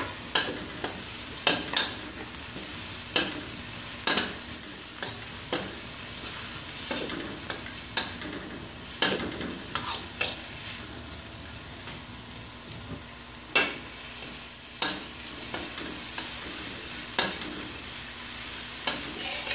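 Sliced chillies, shallots and garlic sizzling in hot oil in a stainless-steel wok, with a metal spatula scraping and tapping against the pan at irregular intervals as the spice base is stir-fried.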